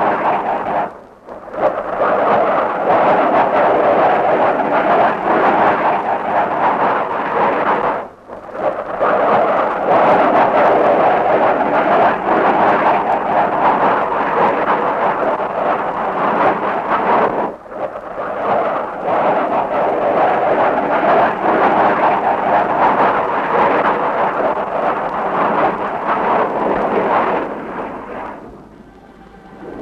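Battle sound effects on an old war film soundtrack: a dense, continuous rumble of explosions, dipping briefly about a second, eight seconds and seventeen seconds in, and fading out near the end.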